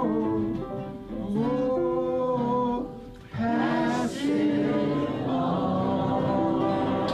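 A man singing long held notes over acoustic guitar and piano, with a short break between phrases about three seconds in.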